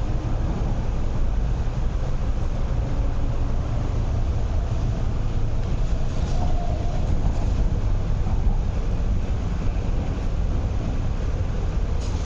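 MTR East Rail Line electric train running at speed, heard from inside the carriage: a steady low rumble of wheels on track and running gear.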